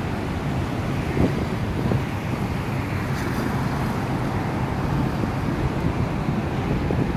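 Steady low vehicle and traffic noise with wind rumbling on the microphone.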